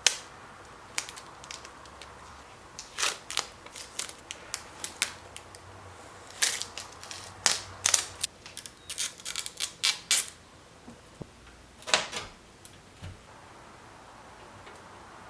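Irregular sharp clicks and taps of PC parts and cable connectors being handled, coming in quick clusters through the first ten seconds, with one more loud click about twelve seconds in.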